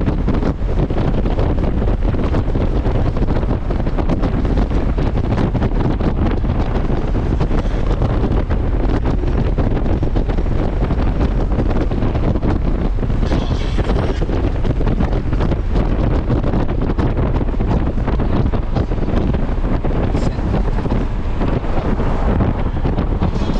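Steady wind rush on the microphone of a Honda GL1500 Gold Wing motorcycle cruising at road speed, with the bike's engine and tyre noise underneath.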